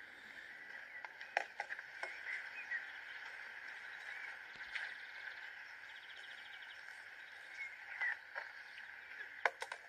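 Outdoor rural ambience: a steady high-pitched chorus with scattered short chirps, a brief rapid trill around the middle, and a few sharp clicks, the loudest near the end.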